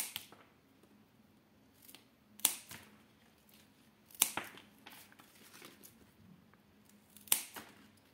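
Scissors snipping through pothos (Epipremnum aureum) stems to take cuttings: four sharp snips a couple of seconds apart.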